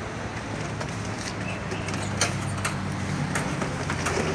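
Vehicle engine idling with a low, steady hum that firms up about half a second in, with scattered light clicks and knocks over it.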